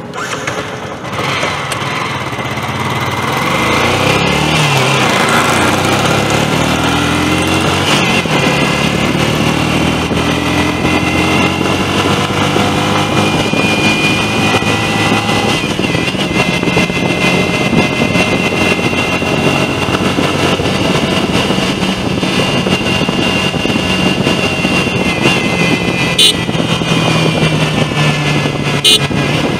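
Stock Yamaha R15 V2's 150 cc single-cylinder engine pulling away from a standstill under hard acceleration. It rises in pitch and drops back at each upshift through the lower gears, then runs steadier at speed. Two short clicks near the end.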